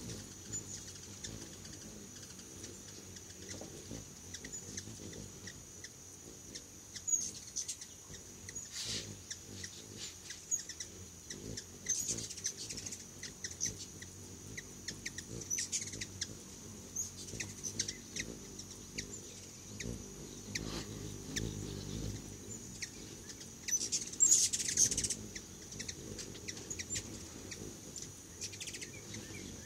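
Hummingbirds calling in short, sharp, high chips and chatter, with a louder burst of chattering about three quarters of the way through. A steady high-pitched hum runs underneath.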